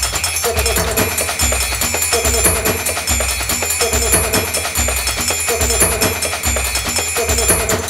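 Upbeat music with busy percussion over a steady, repeating bass beat.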